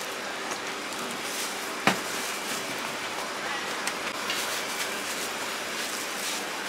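Steady hissing noise with scattered small crackles and one sharper crack about two seconds in.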